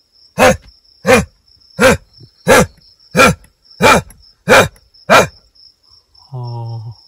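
An animal barking: eight loud barks, evenly spaced about two-thirds of a second apart, over a steady high chirring of crickets.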